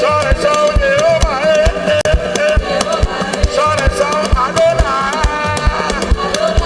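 Live praise music: a band playing a steady drum beat under a wavering lead melody.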